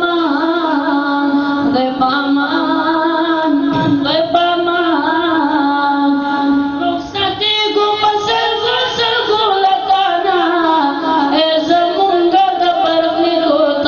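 A high voice singing a Pashto farewell nazm with long held, ornamented notes, without instruments.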